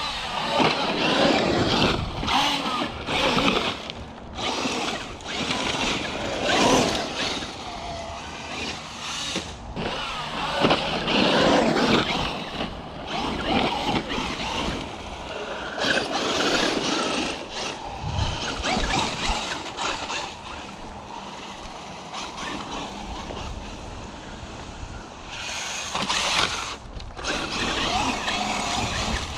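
Traxxas Unlimited Desert Racer RC truck driving around a dirt track, its electric motor and tyres getting louder and softer in repeated bursts of throttle.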